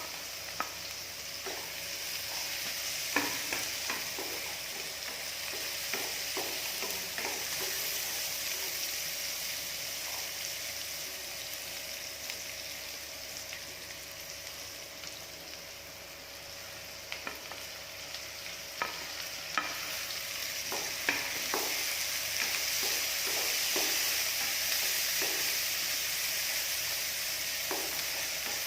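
Chopped onion, garlic and green chili sizzling steadily in hot oil in a pan as they brown, with scattered scrapes and taps of a spoon or spatula stirring them.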